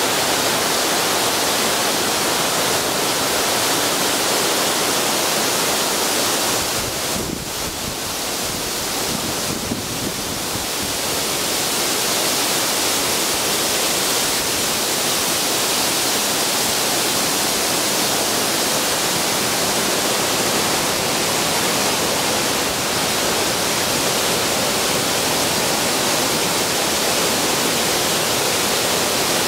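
Waterfall roar: Pendelton Falls dropping over rocks close by, a loud steady rush of water that dips briefly about seven seconds in.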